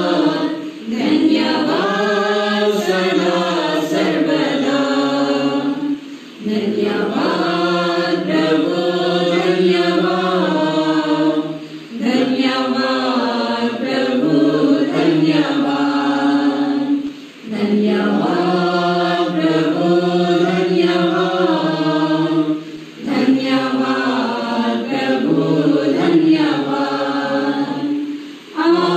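A small group of men's and women's voices singing a devotional hymn together without accompaniment, in phrases with a short breath break about every five or six seconds.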